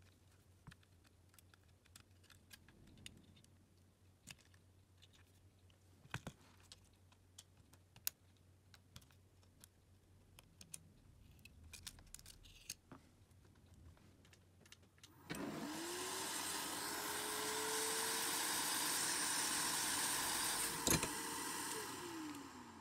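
Light clicks and taps of small tools and phone parts, then about fifteen seconds in a small electric blower motor spins up with a rush of air. It runs steadily for about seven seconds and winds down near the end.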